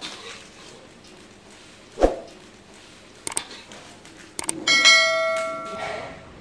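Subscribe-button sound effect: a sharp thump about two seconds in, a couple of mouse clicks, then a notification bell chime that rings and fades over about a second.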